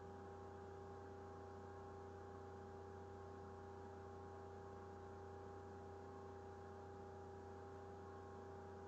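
Near silence with a faint, steady electrical hum of a few unchanging tones.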